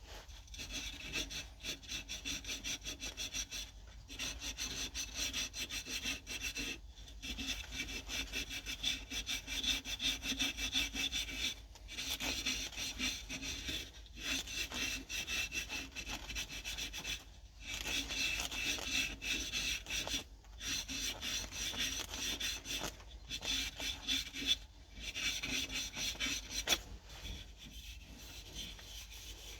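Oak being worked by hand with rapid rasping strokes, in runs of a few seconds broken by short pauses.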